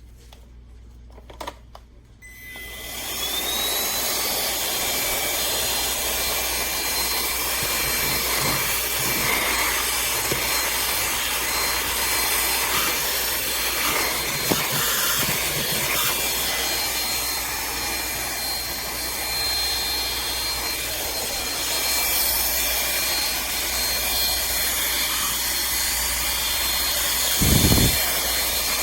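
Aspiron cordless handheld vacuum's motor starting about two seconds in with a rising whine, then running steadily with a high whine over rushing air. A brief low thump near the end.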